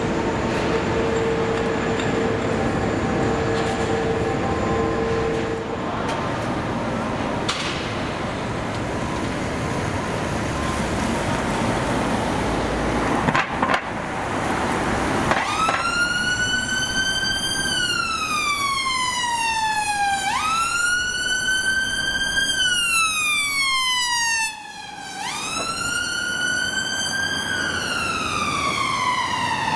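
Background vehicle noise, then about halfway through an emergency vehicle's siren starts up on a slow wail, each cycle climbing and then sliding down over about five seconds.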